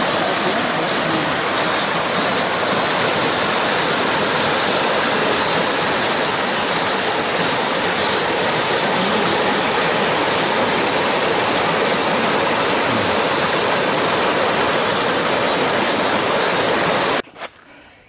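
Mountain stream cascading over and between boulders: a loud, steady rush of water that cuts off abruptly near the end.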